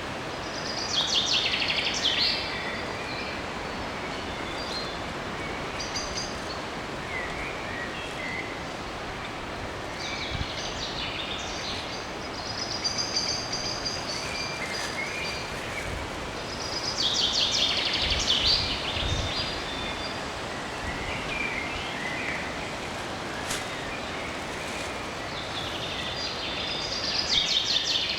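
Forest ambience: a songbird sings a short song phrase four times, about every eight seconds, with quieter calls of other birds in between, over a steady background hiss.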